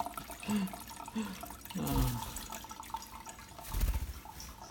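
Tap water trickling and dripping into a sink, with a dull low bump about four seconds in.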